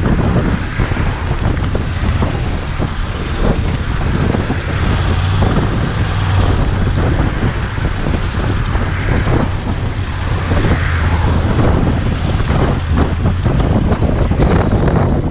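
Wind buffeting the microphone of a moving motorcycle, with irregular gusts over a steady low drone of engine and road noise.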